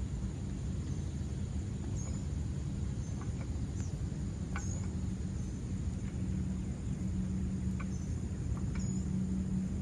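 Steady low rumble of outdoor ambience, with faint, short, high-pitched bird chirps every second or so.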